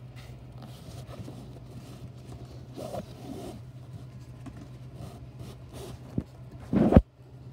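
Soft rustling and scraping of a puppy being handled and shuffling on a fleece pad, over a steady low hum. A sharp click comes about six seconds in, then a brief loud thump just before the sound cuts off.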